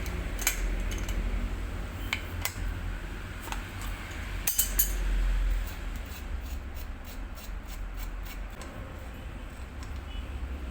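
Metallic clicks and clinks of hand tools working on bicycle parts, irregular at first, then a quicker run of light even ticks in the second half, over a steady low hum.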